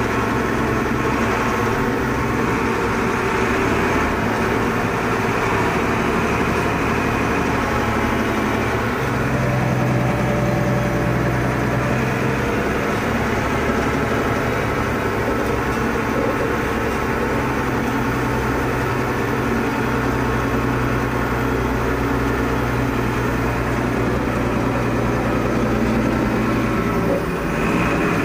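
Volvo BM 861 articulated dump truck's diesel engine running steadily, with a brief change in its note about ten seconds in.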